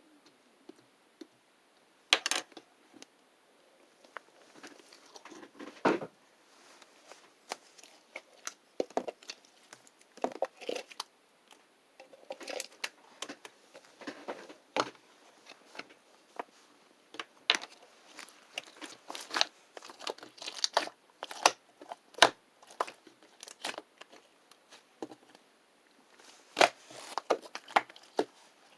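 Toy slime being squished, poked and stretched by hand, making irregular sticky pops, clicks and crackles.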